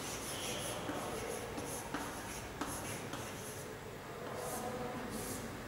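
Writing on a board: a run of short, scratchy strokes, a brief pause, then two more strokes near the end.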